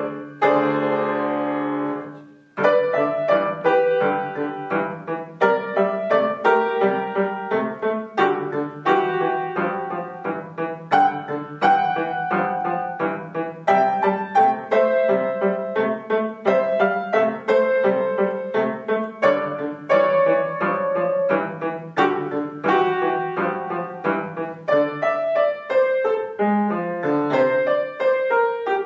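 Grand piano played as a four-hand duet: a lively piece of quick, detached notes over a steady bass. A held chord opens, breaks off briefly about two and a half seconds in, and the playing then runs on, with a low descending run near the end.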